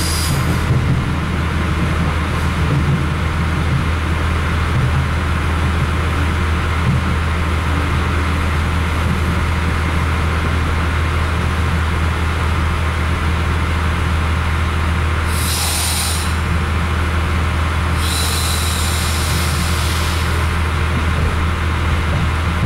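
RA2 diesel railcar heard from inside the passenger cabin while running: a steady low engine drone with rolling wheel-on-rail noise. Two short bursts of hissing come about fifteen and eighteen seconds in.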